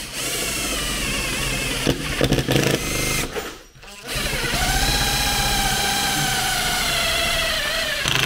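Makita 18V cordless driver whining as it drives a stainless self-drilling screw through the aluminium extrusion of the tent base, in two long runs with a short stop about three and a half seconds in. The motor pitch sags a little near the end as the screw works hard through the metal.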